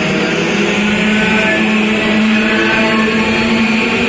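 Go-kart engines droning steadily as karts lap the circuit, the engine note shifting slowly up and down in pitch.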